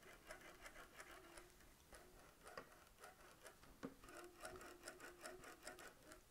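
Faint rubbing and light irregular clicking of a 3D-printed PETG cable-driven differential wrist joint as it is turned back and forth by hand, its tightened cables running over the pulleys.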